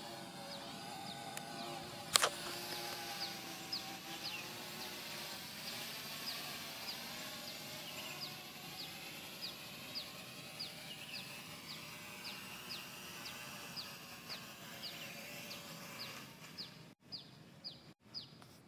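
Faint, wavering hum of an MJX Bugs 3 quadcopter's brushless motors as it holds a hover. Over it, a bird's short, high, falling chirp repeats about twice a second, and there is one sharp click a couple of seconds in.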